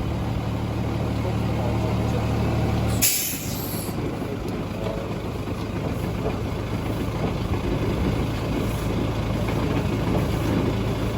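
High-pressure jetting truck's engine running with a steady hum, broken about three seconds in by a short, sharp hiss of released air. After the hiss the engine runs on with a rougher, noisier sound.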